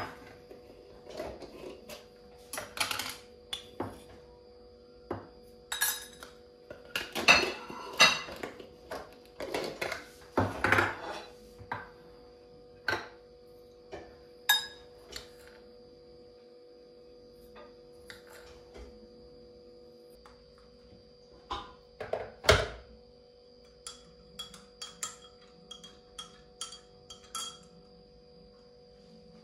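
Clinks and knocks of making instant coffee by hand: a coffee jar's lid and the jar handled and set down, a metal spoon tapping in a glass mug, and the glass mug set on a stone countertop. The knocks come one at a time, busiest in the first dozen seconds and again with a loud knock about two-thirds in, over a faint steady hum.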